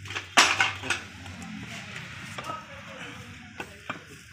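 Metal clank of tools and gearbox parts being handled on a workbench: one loud clank about half a second in, then a few lighter clicks.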